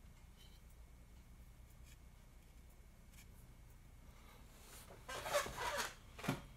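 Quiet handling at a workbench: a few faint taps, then, about five seconds in, a short rustling scrape of just over a second as hands press glued wooden stripes into place.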